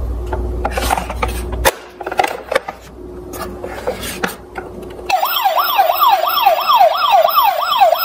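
Plastic clicks and knocks of a large toy police car being handled, then about five seconds in its electronic siren switches on: a fast wail sweeping up and down about two and a half times a second.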